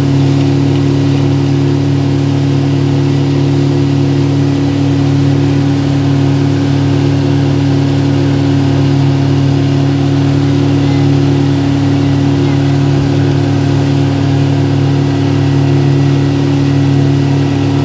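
An engine running steadily at an unchanging speed, a loud, even hum.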